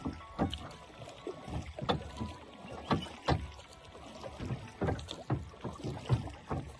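Oars being rowed in a small rowboat: irregular knocks and clunks of the oars working in their oarlocks, about two a second, over the low wash of the strokes through the water.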